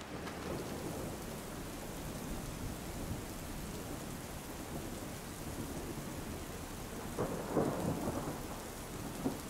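Steady rain falling on a river's surface, with a louder rumble about seven seconds in.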